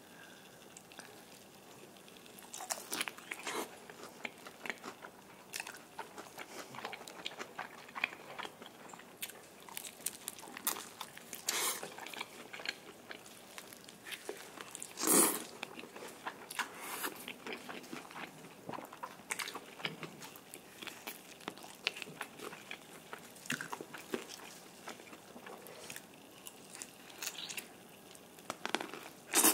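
Bites and chewing of sauce-coated Korean yangnyeom fried chicken: irregular crisp crunches of the fried coating, with the loudest crunch about halfway through.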